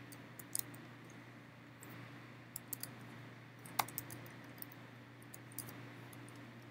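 Faint keystrokes on a computer keyboard, a few scattered taps in small clusters as numbers are typed, the sharpest about four seconds in, over a steady low hum.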